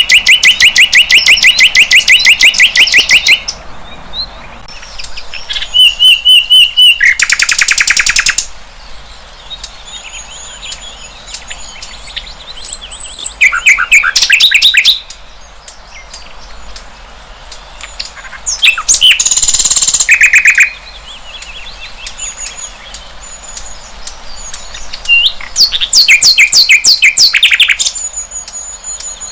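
A sikatan londo flycatcher singing: loud bursts of fast, rapidly repeated trilled notes, about five phrases a few seconds apart. Faint thin high chirps come in between the phrases.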